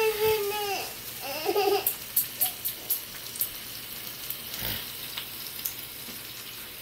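Sliced onions and tomatoes sizzling in oil in a frying pan, with a few light clicks of handling between about two and three and a half seconds in. A child's voice is heard briefly at the start and again about a second and a half in.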